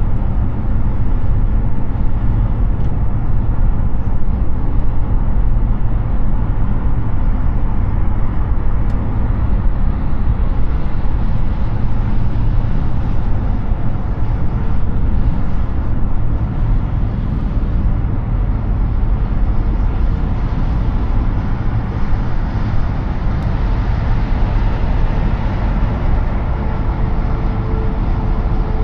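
Steady tyre and wind noise of an all-electric Hyundai Ioniq 6 driving at highway speed, an even low rumble with no engine note.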